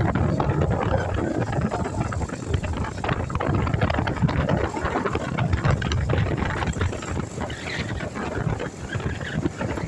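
Road vehicle noise with wind buffeting the microphone: an uneven rumble with no horn tones.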